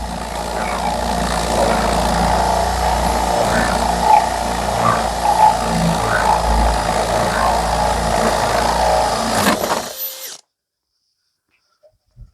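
Power drill boring a 32 mm hole through a feather edge board, running steadily under load, then stopping abruptly about ten seconds in.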